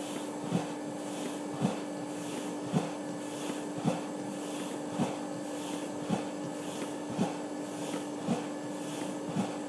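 A large fire burning under forced air: a steady hum and rushing, with a short low thump that repeats evenly about once a second.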